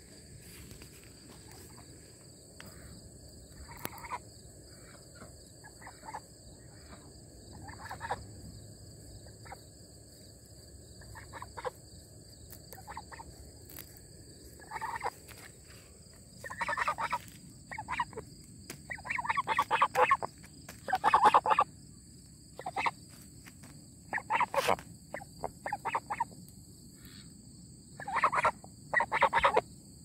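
Domestic white geese honking, with ducks calling among them, in short bursts of calls that are sparse at first and come louder and thicker from about halfway on. They are contact calls: the birds call for their keeper when she is out of their sight.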